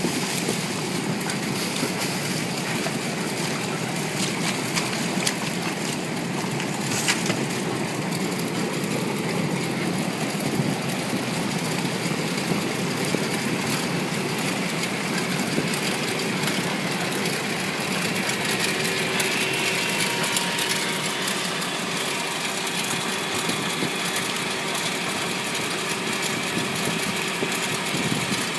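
Air-bubble vegetable washing machine running with a steady mechanical noise, and a single sharp knock about seven seconds in.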